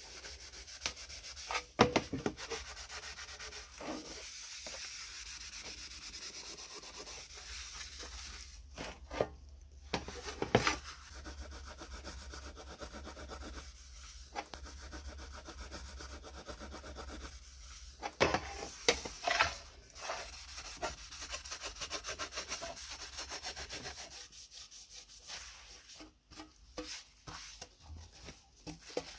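A sponge scrubbing a wet sheet-metal panel in steady rubbing strokes, with a few sharp knocks as the panel is handled. Near the end a cloth wipes the panel more quietly.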